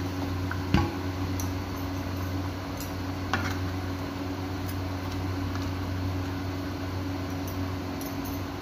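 A spatula knocks against a pan of boiling fish curry about a second in, and taps it more lightly a few seconds later, over a steady low hum.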